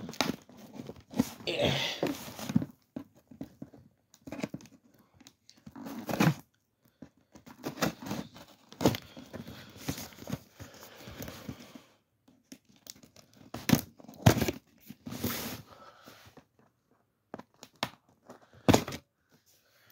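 A cardboard box being cut open with scissors and torn by hand, in irregular scraping and tearing bursts with sharp knocks and clicks of handling, broken by short pauses.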